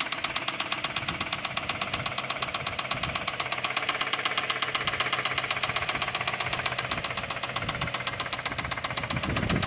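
2008 Toyota Camry engine running with a rapid, even knock, about eight knocks a second.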